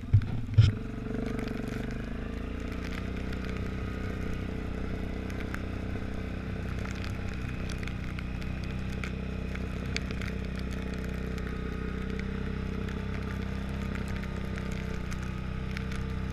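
Quad bike (ATV) engine running at a steady, even speed while riding along a snowy track. Two sharp knocks come in the first second, and faint scattered ticks run through the rest.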